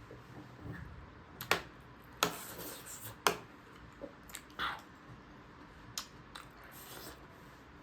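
Close-up mukbang eating sounds: chewing and wet mouth noises, broken by sharp clicks every second or so.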